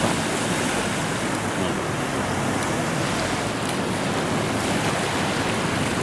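Sea surf washing over shoreline rocks and up a sand-and-pebble beach, a steady rushing without a break.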